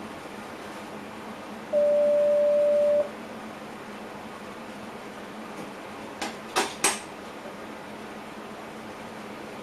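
A single steady electronic beep, one pure tone held for just over a second, from the train cab's warning equipment, over the steady running noise of the cab. A few sharp clicks follow about six to seven seconds in.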